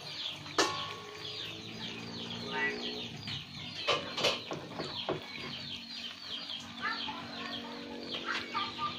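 Chicks peeping: a rapid, unbroken run of short, high, falling cheeps. A metal ladle clinks a few times against the measuring glass and bowl, about half a second in and again around four seconds in.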